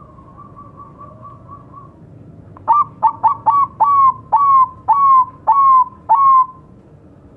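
Zebra dove (Bangkok-line perkutut) singing: a soft, quick run of notes, then about ten loud, clipped coos, fast at first and slowing, each note a little longer than the one before.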